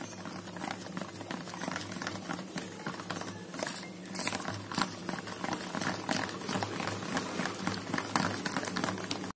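Spoon stirring thick fermented rice batter in a plastic bowl, a continuous run of soft wet clicks and scrapes as the food colour is mixed in.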